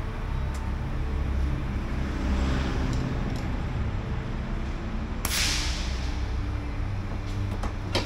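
Steady low running of a large engine, with a short, sharp hiss of air that fades out about five seconds in, and a few light clicks.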